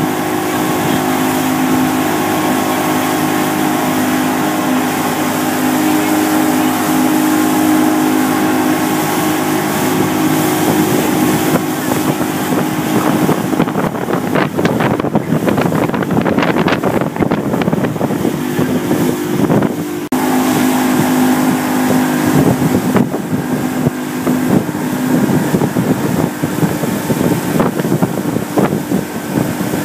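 Motorboat engine running steadily at speed while towing a tube, with wind and rushing water over the wake. For several seconds in the middle, wind buffeting the microphone covers the engine hum, which comes back about twenty seconds in.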